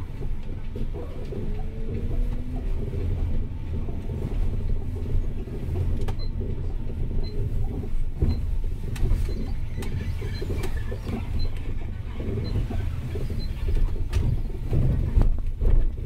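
Road vehicle driving through city traffic: a steady low rumble with engine pitch rising and falling. A faint tick repeats about once a second through the middle.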